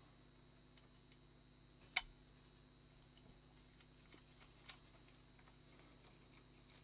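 Near silence with a few small clicks of a screwdriver and tiny screws being handled, the sharpest about two seconds in and a fainter one near the end.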